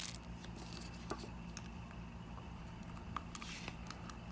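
Faint, scattered clicks and taps of small plastic capsule-toy figure parts being handled and fitted together, over a low steady hum.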